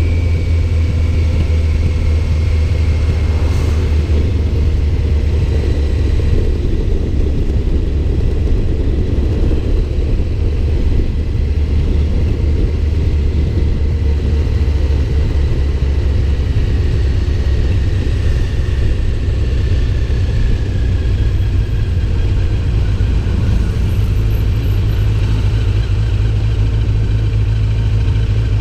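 A car's engine running steadily with a heavy low rumble, and a faint high whine that slowly drifts lower in pitch.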